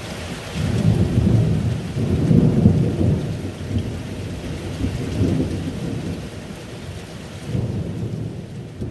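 Low, uneven rumble of wind buffeting the microphone, swelling and easing.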